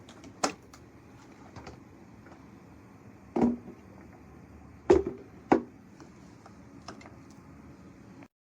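Several sharp knocks and clicks over a faint steady hiss, the two loudest knocks about half a second apart near the middle; the sound cuts off shortly before the end.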